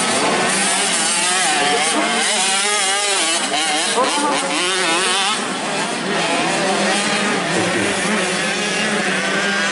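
Motocross dirt bike engines revving hard, their pitch rising and falling again and again as the throttle is worked.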